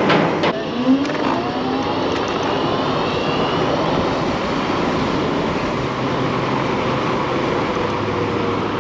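Steady rush of wind on a chest-mounted action camera's microphone, with tyre noise from an electric scooter riding along at speed. A few knocks come in the first second.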